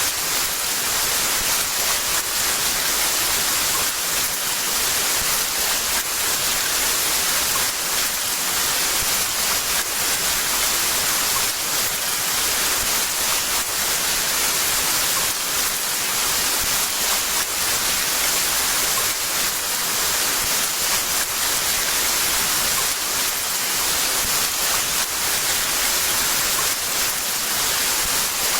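Heavy rain falling steadily, an even hiss with a dense patter of drops and no thunder.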